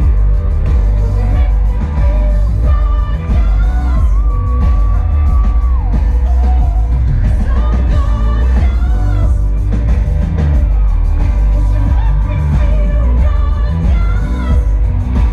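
Live band playing a song through a loud festival sound system, with heavy bass and a lead singer, heard from inside the crowd; the singer holds one long note about four seconds in.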